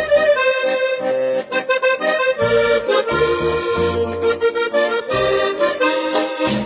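Accordion-led dance music, with sustained accordion chords and melody over an intermittent low bass line.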